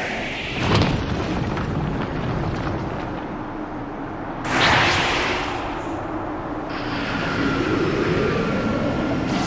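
Anime-style energy-blast sound effects: a continuous rumble with two sudden blasts, about a second in and about four and a half seconds in, and a steady hum that rises in pitch near the end.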